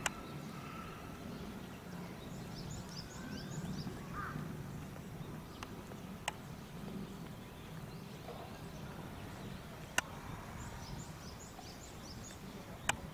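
Outdoor ambience with a steady low murmur, small birds chirping in two short twittering runs, and three sharp clicks, the loudest sounds.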